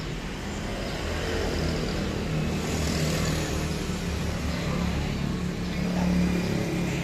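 A vehicle engine running steadily, getting somewhat louder over the first few seconds.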